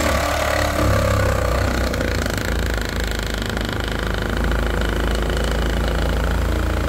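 Mastercraft 20V cordless reciprocating saw running steadily, its blade cutting through a piece of very hard pallet wood.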